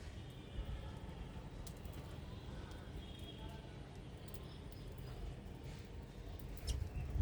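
Small birds chirping softly with short high calls and trills, one sharp down-slurred whistle near the end, over a steady low outdoor rumble. A few light clicks.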